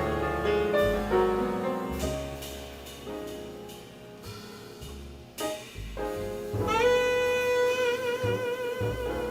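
Jazz ballad: piano chords over upright bass notes ring out and fade, then about two-thirds of the way in a saxophone enters on one long held note with vibrato.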